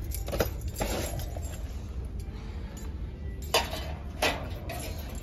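Light clinks and knocks of Christmas ornaments being handled and set down, a few sharp ones spread through (the loudest two about three and a half and four seconds in), over a steady low shop hum.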